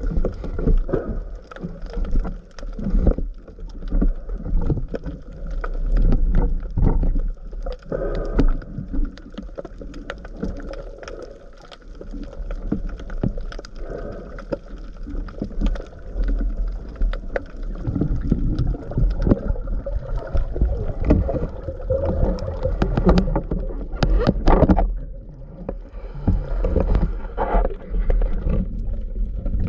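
Underwater sound from a diver's camera: muffled water movement and gurgling against the housing, with many scattered clicks and faint hum-like tones that rise and fall in loudness.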